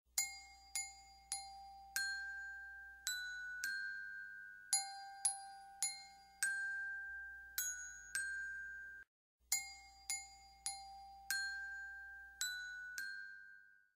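A slow, quiet tune of single bell-like chiming notes, each struck and left to ring and fade, with a brief pause about nine seconds in.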